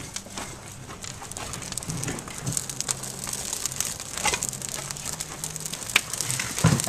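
Wood fire crackling in the open stoking door of an anagama kiln, with a few sharper knocks as split wood is tossed onto the fire, the louder ones near the end.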